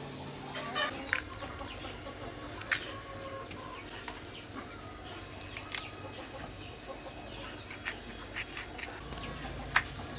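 Domestic chickens clucking, with a few scattered sharp clicks.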